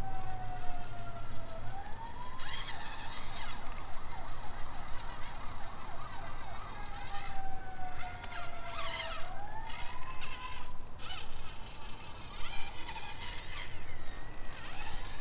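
Whine of a micro crawler's prototype LGRP brushless motor and drivetrain, its pitch sagging slowly as the motor loads up on a climb and then rising quickly as it frees up, twice. Short bursts of tyres and chassis scrabbling on rock come in between.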